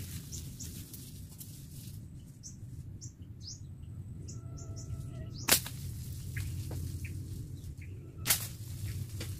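Small birds chirping in short high calls, then two sharp cracks about three seconds apart over a steady low hum.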